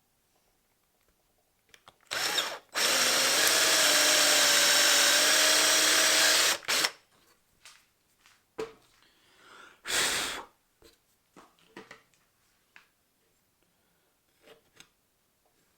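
A handheld power tool's motor runs in short bursts: a brief blip about two seconds in, a steady run of about four seconds, a short blip right after, and another half-second burst about ten seconds in. Light clicks and taps of handling fall between the runs.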